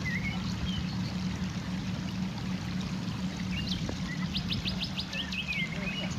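Birds chirping, including a quick run of about six high notes about four seconds in, over a steady wash of seawater and a low steady hum.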